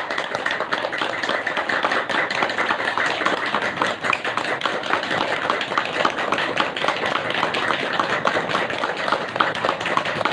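One person clapping hard and fast with open, spread fingers: a rapid, unbroken run of sharp hand claps.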